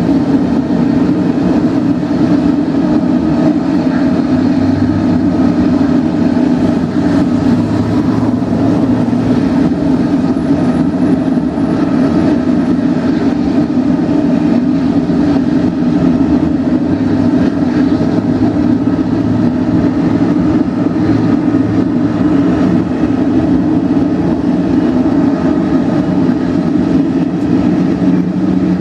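Boeing 777-300ER's GE90-115B turbofan engines running on the apron, a loud steady drone.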